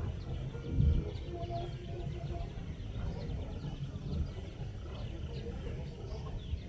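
Riverside evening ambience: many small birds chirping in short rapid notes over a low, uneven rumble, with faint voices from a distant social gathering.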